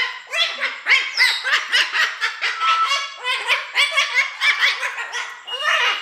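Umbrella cockatoo calling in a rapid string of short squawks, several a second.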